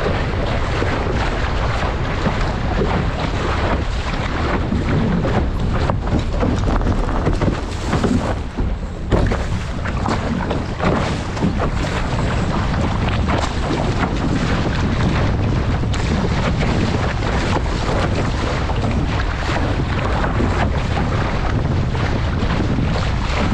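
Wind buffeting the microphone of a camera on an RS600 sailing dinghy's foredeck, over water rushing and splashing along the hull as the boat sails upwind. About eight seconds in the noise briefly drops and breaks up as the boat tacks, then picks up again.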